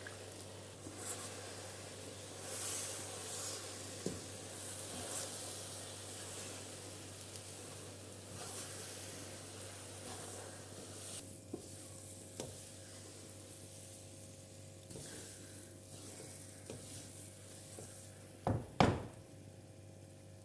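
Jaggery syrup sizzling as it hits the hot ghee and ground flaxseed mixture in a kadhai, then a wooden spatula stirring and scraping the thick mixture, with scattered small clicks. Two sharp knocks near the end are the loudest sounds.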